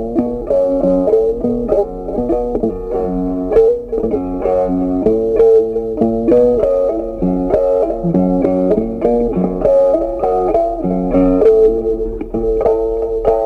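Background music: a plucked guitar tune.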